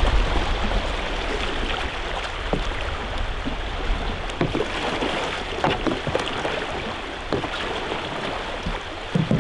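Steady rushing of river rapids, with scattered splashes and knocks from the paddles of a tandem canoe being paddled through the current.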